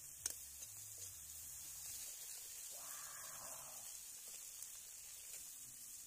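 Masala frying in oil in a metal kadai: a faint, steady sizzle, with a couple of light clicks of the metal ladle against the pan near the start.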